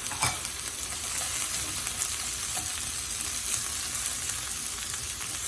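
Onions and green chilies frying in hot oil with eggplant in a pan, a steady sizzle. A single sharp utensil tap comes just after the start.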